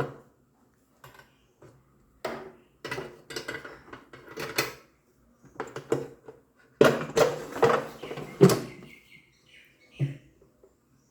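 Knocks and clatter of an air fryer and its basket drawer being handled, in several short bursts with pauses between them, busiest and loudest about seven to nine seconds in.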